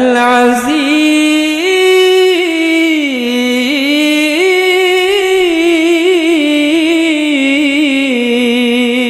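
A male reciter chanting the Qur'an in melodic tilawah style. He holds one long, ornamented vowel on a single breath, the pitch stepping up and down with fine trills.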